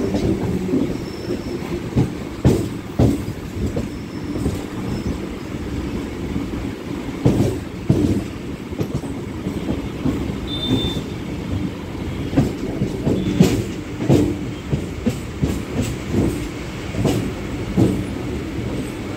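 Suburban electric multiple-unit (EMU) train running, heard from its open doorway: a steady rumble of wheels on rail, broken by irregular clacks and knocks as the wheels cross rail joints and points. A brief high-pitched wheel squeal comes a little past the middle.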